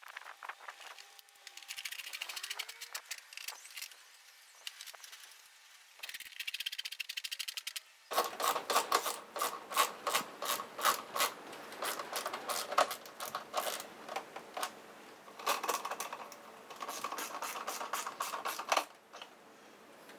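Rapid runs of mechanical clicking from a hand tool driving in the screws that hold the plastic wheel-arch liner. Quieter scraping and scattered clicks come first; from about eight seconds in the clicking gets much louder and comes in quick bursts.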